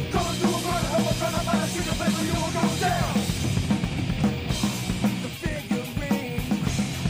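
Nu metal band recording: drum kit with guitars and bass playing a steady beat. A sliding pitch falls about three seconds in, after which the pitched parts thin out and the drums stand out more.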